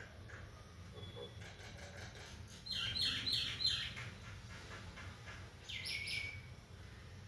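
Common (Indian) myna calling: a quick run of four sharp, falling notes about three seconds in, then two more near six seconds, with a few fainter notes before, over a steady low hum.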